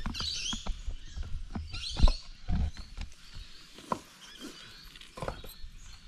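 Loose stones knocking and clacking against one another as they are handled and set onto a hand-built stone stack, a dozen or so separate knocks, the loudest about two seconds in. High chirping calls come near the start and again about two seconds in.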